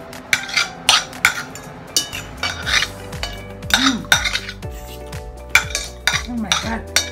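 Knives and forks clinking and scraping on dinner plates during a meal: a string of sharp, irregular clinks, several with a short ring after them.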